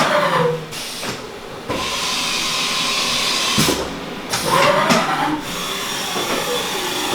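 Haas VF-4SS CNC vertical machining center running, with a steady hiss. Its spindle's whine falls in pitch near the start, then rises and falls again about four and a half seconds in, as it speeds up and slows down.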